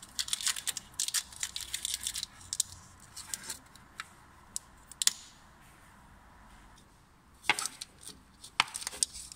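Plastic wiring connector and harness clips of a crankshaft position sensor being handled: a dense run of small clicks and rustling in the first two seconds, scattered clicks to about five seconds in, then a few sharper clicks near the end.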